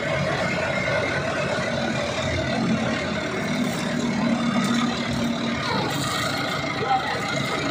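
Diesel engine idling steadily.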